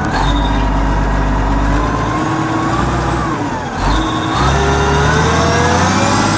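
Diesel engine of a Kawasaki 90Z wheel loader running and being revved: the pitch climbs, sags about three seconds in, then climbs again. A faint high whine rises in the second half, the sound of the freshly freed turbocharger spooling up.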